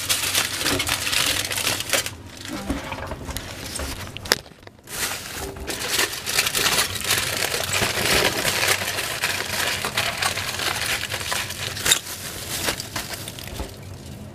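Aluminium foil crinkling and crackling as it is folded and wrapped around food, with a short lull about four and a half seconds in.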